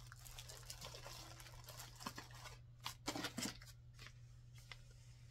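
Faint rustling and crinkling of plastic wrapping as packaged items are handled, with a cluster of light clicks and knocks about three seconds in.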